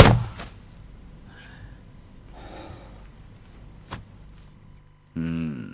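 A heavy blow thuds at the very start, followed by a quiet stretch. Crickets then chirp at about three chirps a second, and near the end a short pitched tone falls in pitch.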